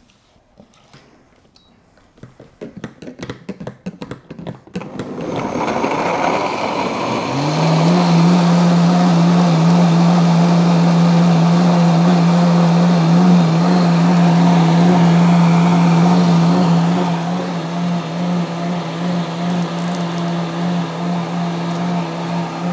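Countertop jug blender starting up with an uneven clatter, then running at high speed, puréeing herb stalks and vegetables in oil and liquid into a smooth green sauce. The motor settles into a steady hum about seven seconds in, and becomes a little quieter and less even in the last few seconds.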